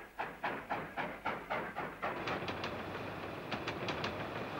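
Steam locomotive running, chuffing at about four beats a second. About two seconds in this gives way to a steady rolling rumble with quick clusters of wheel clicks over the rail joints.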